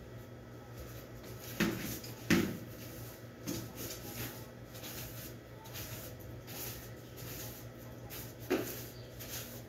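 Broom sweeping dust on a tiled floor: faint repeated swishing strokes, with four sharp knocks, the loudest about two seconds in, over a steady low hum.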